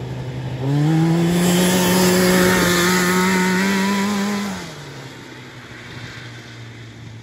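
Yamaha 540 two-stroke snowmobile engine running in a homemade buggy. It idles, is revved up about a second in and held at a steady higher speed for several seconds, then drops back to idle.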